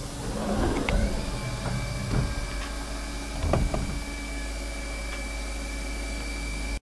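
CNC vertical mill running: its spindle spins up with a rising whine about a second in, then holds a steady high whine over the machine's low hum, with a few light clicks. The sound stops abruptly just before the end.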